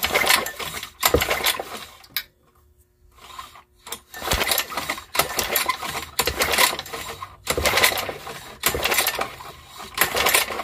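Lauson LAV35 3½ hp lawnmower engine turned over by repeated pulls of the recoil starter, cranking in several bursts without starting. The spark plug is out and held against the cylinder head for a spark test.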